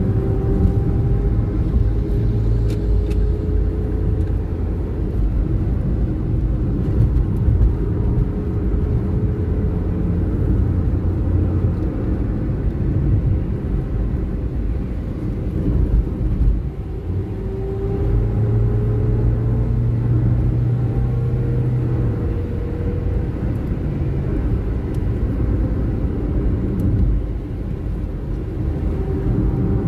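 Inside a moving car: steady engine and tyre rumble from the road, with an engine tone that slowly rises in pitch several times.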